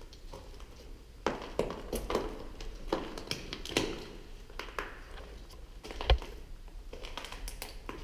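Footsteps crunching and scuffing on fallen plaster and paint debris, irregular. A dull thump comes about six seconds in.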